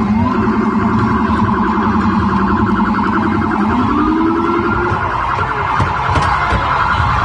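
Police car siren sounding in a fast pulsing yelp, with a second tone rising in pitch about three and a half seconds in.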